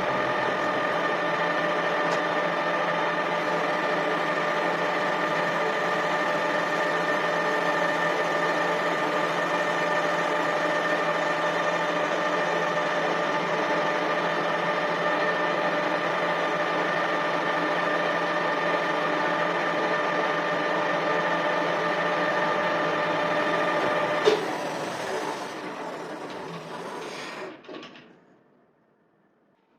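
Lathe running with a steady whine over a mechanical hiss. About three-quarters of the way through there is a click, the whine stops, and the machine winds down to a stop over a few seconds.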